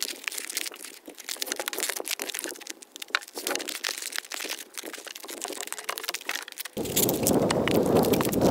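Gloved hands squeezing and pressing foam pipe insulation onto a pipe, close up: a dense run of crinkling and crackling. About seven seconds in, a louder steady low rumble takes over.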